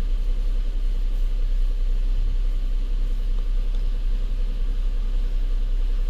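The 2007 Lincoln MKZ's 3.5-litre V6, warmed up and idling steadily, heard from inside the cabin as a low, even rumble.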